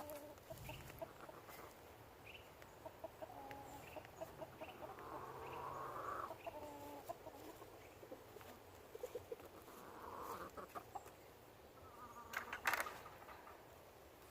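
Chickens clucking quietly and sporadically, with a couple of longer drawn-out hen calls, while they feed on cooked squash. Near the end there is a single sharp click.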